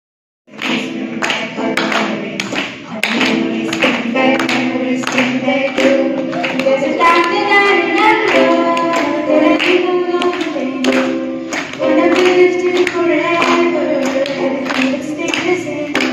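A woman singing into a microphone to a strummed stringed instrument, with a steady beat of sharp strokes about twice a second. It starts abruptly about half a second in.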